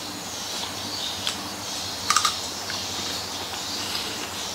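A bite of KitKat Chunky being chewed: a few crisp crunches of chocolate-covered wafer, the loudest about two seconds in.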